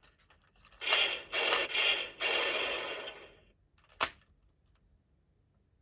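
Talking Optimus Prime toy playing an electronic sound effect through its small, tinny speaker for about two and a half seconds, followed by a single sharp click about four seconds in.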